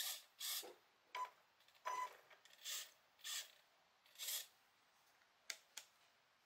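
Tamiya M-06 radio-controlled car's electric drivetrain whirring in short bursts, about eight in a row, a couple with a brief beep-like tone, then two quick clicks near the end.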